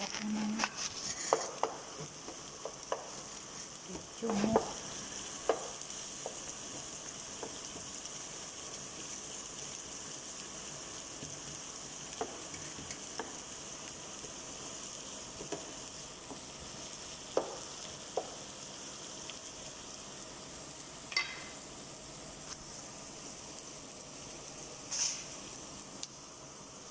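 Sliced red onions sizzling steadily in hot oil in a nonstick frying pan, with scattered clicks and knocks, most of them in the first few seconds.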